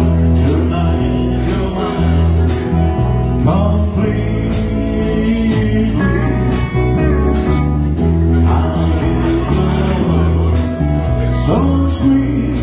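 A band playing fifties-style music with guitar and a steady beat.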